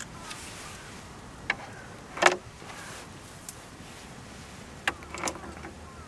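Scattered sharp pops and crackles from wooden sticks catching fire in a small metal fire pit, about six at irregular intervals, the loudest a short cluster a little after two seconds in.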